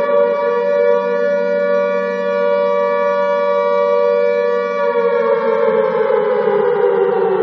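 Alarm siren wailing loudly: its pitch holds steady, then begins a slow downward slide about five seconds in.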